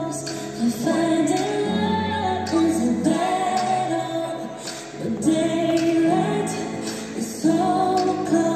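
Music with a woman singing, in phrases of long held notes.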